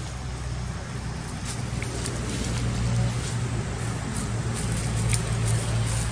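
A steady low hum that grows a little louder after about two seconds, with a few faint clicks over it.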